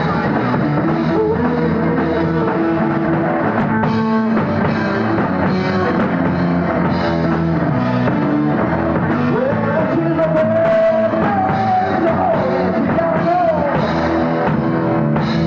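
Rock band playing live: electric guitar, bass and drum kit, with a sustained lead line that bends up and down in pitch around the middle.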